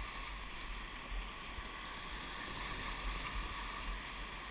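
Rushing whitewater of a river rapid heard from a raft, a steady even noise with a low rumble underneath.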